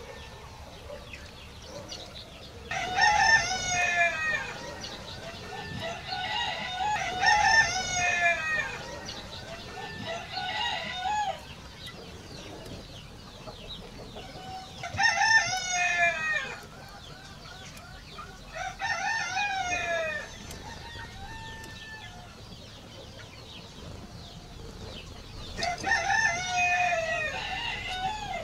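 Roosters crowing, about six crows in turn, each lasting a second or two and some running together.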